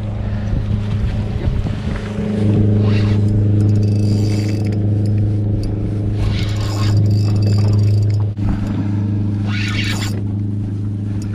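Boat engine running at a steady low hum, a little louder from about two and a half seconds in, with several short hissy scraping noises over it.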